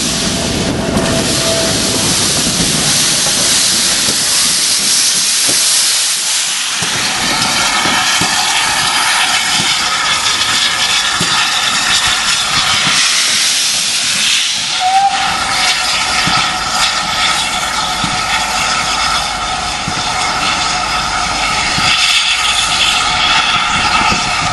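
GWR Manor-class steam locomotive 7827 Lydham Manor letting off steam: a loud steady hiss, joined about halfway through by a steady high-pitched ringing tone from escaping steam.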